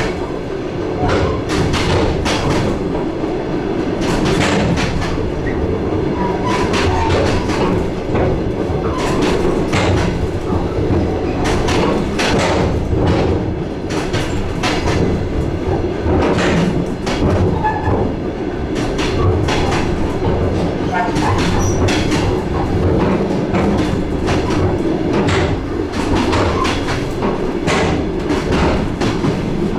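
DR1A diesel railcar underway: its wheels knock over the rail joints, a repeated, uneven clatter over the steady drone of the running diesel.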